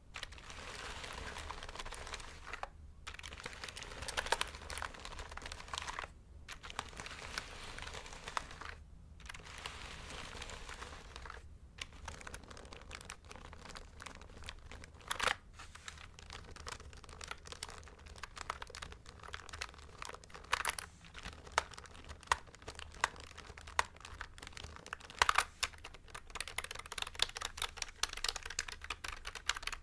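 Hands on a mechanical keyboard: first a scratchy rustling in stretches of a few seconds with short breaks, then, from about twelve seconds in, fast, irregular clicking of the keys being typed and tapped.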